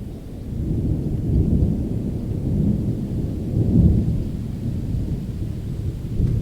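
Deep, continuous rolling rumble of thunder with no high hiss of rain, swelling twice and loudest about four seconds in.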